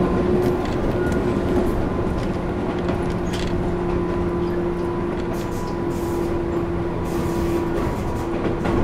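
Tobu 10000-series electric train heard from inside a motor car, running at a steady speed: a steady hum at one pitch from the traction motors and gearing over the rumble of wheels on rail.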